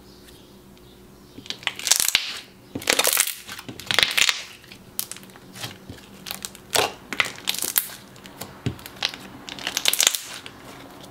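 Thick, glossy slime being pressed, poked and folded by hand, giving uneven spells of sharp clicking and crackling that begin about a second and a half in.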